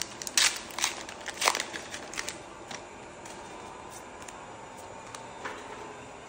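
Trading cards being handled and sorted by hand: a quick run of sharp crinkly snaps and flicks in the first couple of seconds, then quieter handling.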